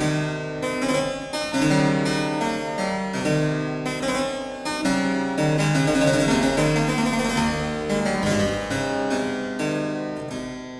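Harpsichord playing a piece: a run of plucked notes with a bright, overtone-rich sound, the notes changing about twice a second.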